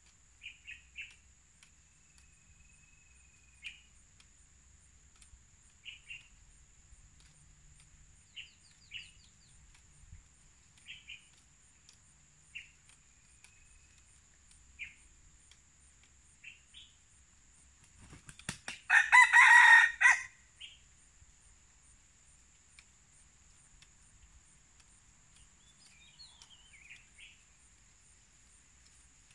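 A red junglefowl cock crows once, loudly, a short crow of about a second and a half a little past the middle. Small birds give brief chirps now and then, over a steady high-pitched hum.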